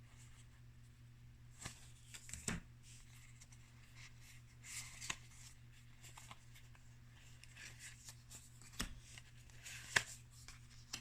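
Trading cards being handled and flipped through: soft, scattered rustles and clicks, a handful spread over several seconds, over a faint steady low hum.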